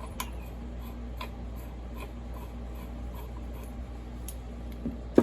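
Faint, irregular light clicks from the chainsaw crankcase and crankshaft being handled on the bench, then a sharp knock near the end.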